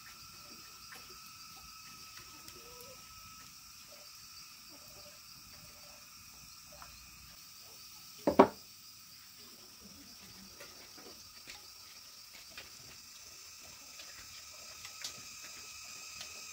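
Steady high insect chirring in the background with scattered light clicks. About eight seconds in, a sharp double knock as a bowl is set down on a wooden table.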